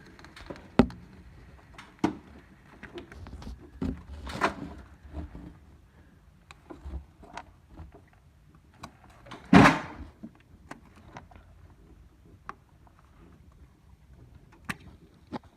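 Clicks and knocks of the fuel heater's electrical connector on a 12-valve Cummins being worked and unplugged, with two short hissing wheezes, the louder about two-thirds of the way through. The owner takes the wheeze for air leaking in at the connector, the cause of the engine losing fuel prime.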